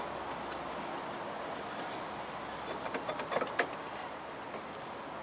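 A new brake rotor being fitted onto the rear wheel hub of a 2006 Subaru Forester. A quick run of light metallic clicks and clinks about three seconds in, as the rotor is worked into place on the hub. A steady background hiss runs underneath.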